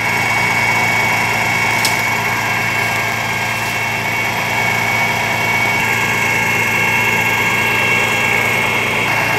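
Fire engine's motor and water pump running steadily to feed a hose line, with a steady high-pitched whine over the engine's hum.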